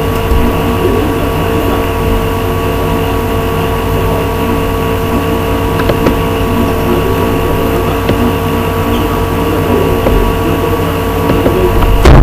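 A steady mechanical hum with several fixed tones over a low rumble, like a motor or fan running, with a couple of faint clicks and a louder low swell at the very end.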